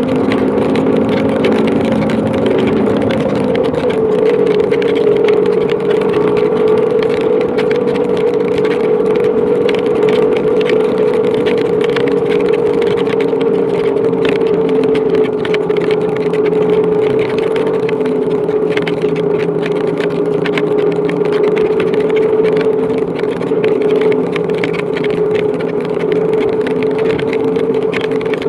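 Motorcycle engine running at a steady cruising speed, its note dipping slightly about three seconds in and then holding, under a hiss of heavy rain and wind.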